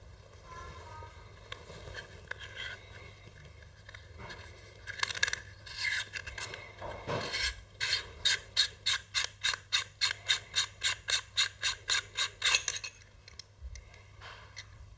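Small threaded camera adapter parts being twisted in the hands: a few scrapes, then a run of about twenty quick, even clicks, about four a second, lasting nearly five seconds before stopping.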